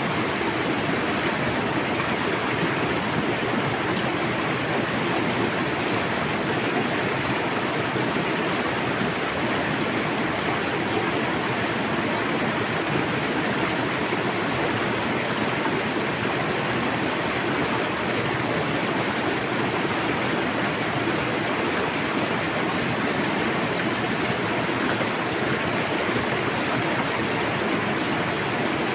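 Fast river water rushing steadily over its bed: a constant, even roar of flowing water with no pauses or changes.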